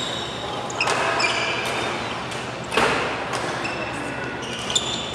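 Indoor badminton hall sound: a few sharp shuttlecock hits, the loudest about three seconds in, and short high squeaks of court shoes, over voices echoing in the hall.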